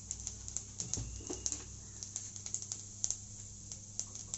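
Mustard seeds and urad dal crackling in hot oil in a kadai: irregular sharp pops, several a second.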